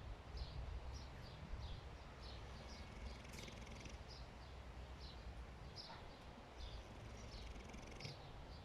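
A sleeping pig snoring in low rumbles. Short high chirps repeat two or three times a second over it.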